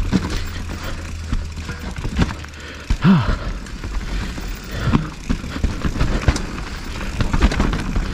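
Mountain bike ridden over a rough dirt trail: tyre noise with the bike rattling and knocking sharply over bumps, and wind rumbling on the microphone. There is a louder jolt about three seconds in.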